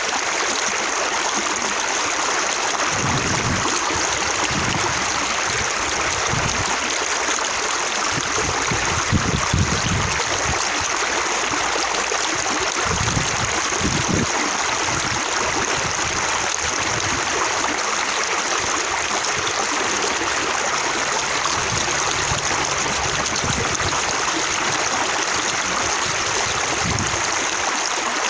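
Running water splashing and spattering as droplets bounce, a steady full-bodied rush with a few heavier, deeper splashes about nine and thirteen seconds in.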